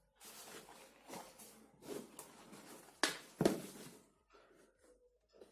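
Handling noise from cricket shoes and their packaging: rustling and rubbing, with two sharp knocks a little after three seconds in, then it goes quiet.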